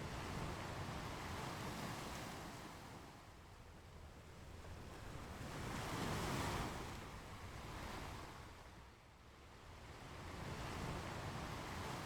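Ocean waves breaking and washing up on a beach in slow, swelling surges, the loudest one about halfway through.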